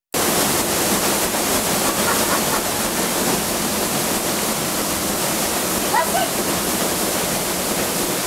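Sternwheel paddle of the riverboat Natchez turning and splashing through river water: a steady rush of water noise.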